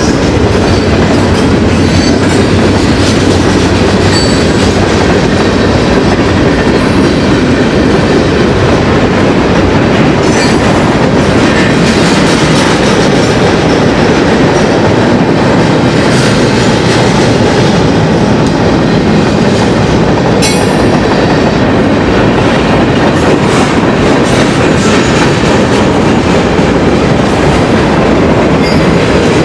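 Pan Am Railways freight train rolling past at close range: a loud, steady rumble of freight cars with the clickety-clack of wheels over the rails.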